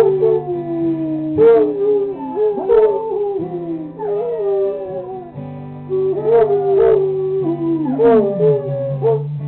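Foxhound and beagle mix howling along to a strummed guitar: long howls, one after another, each sliding down in pitch over a second or two, with a few chord strums under them.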